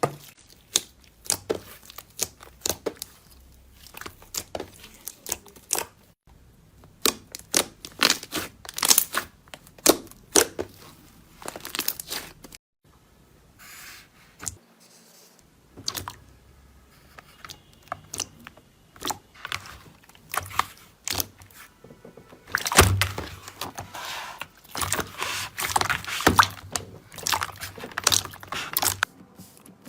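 Slime being squeezed, pressed and poked by hand, giving a run of irregular crisp crackles and pops.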